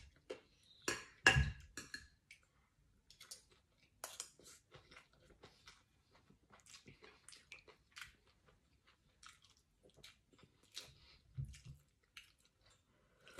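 Close-up eating sounds: chewing with small wet mouth clicks, a spoon dipping into a pan of chicken soup, and a sip of broth from the spoon near the end. A dull knock about a second in is the loudest sound, with a softer one near the end.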